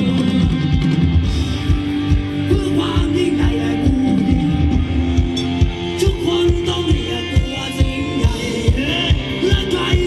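Live Thai ramwong dance band playing loud through a PA system: a steady drum beat under a gliding sung or played melody.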